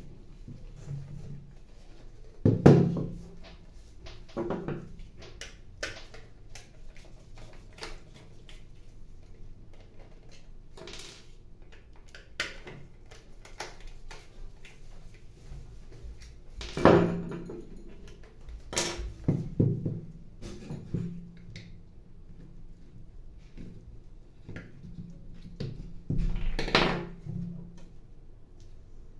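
Plastic parts of a Xerox 106 compatible toner cartridge being handled and set down on a wooden workbench: scattered clicks, knocks and light rattles, with a few louder knocks.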